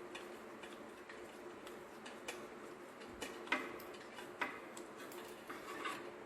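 Hand tools working on a car being dismantled: scattered light metallic clicks and ticks at an uneven pace, with a few sharper clicks.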